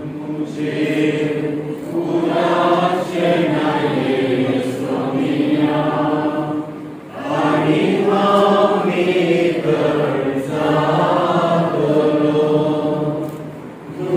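A gathering of people singing a hymn together in long held phrases, with brief pauses about halfway through and near the end.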